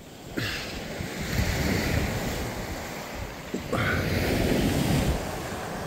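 Small sea waves breaking and washing up the shore, two surges shortly after the start and about two thirds through, with wind buffeting the microphone.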